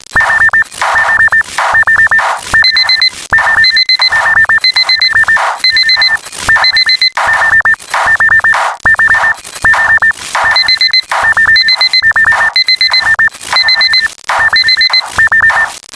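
Electronic beeping like an alarm clock: short high beeps in rapid clusters, several a second, broken by bursts of hiss.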